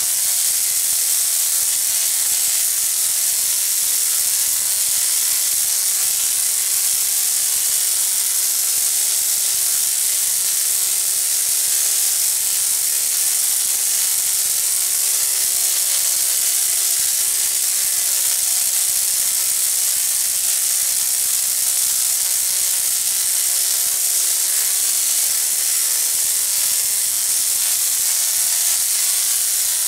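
Rotary-spark-gap Tesla coil firing continuously, its arcs from the stacked toroids making a loud, steady sizzling buzz with an even hum beneath.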